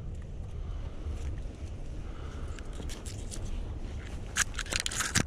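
Walking through thick brush: dry pine straw and leaves crackling underfoot and twigs scraping against clothing, with a denser burst of scraping near the end, over a low wind rumble on the microphone.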